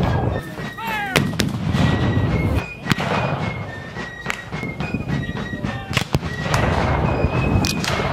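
Black-powder cannon and musket fire at a Civil War reenactment: a few sharp shots a second or two apart over a heavy low rumble, with voices and music playing along.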